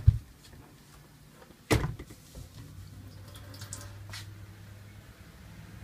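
Two sharp knocks about a second and a half apart as a hinged stainless-steel-and-wood sink cover is folded over and set down on the countertop. A low steady hum follows.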